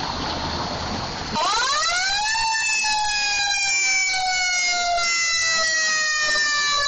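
Fire engine's siren cutting in about a second and a half in. It climbs quickly to its top pitch, then falls slowly and steadily, still sounding at the end. Before it there is a steady noise.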